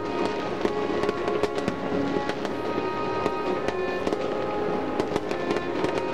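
Fireworks display crackling and popping, many sharp cracks in quick succession, with music playing throughout.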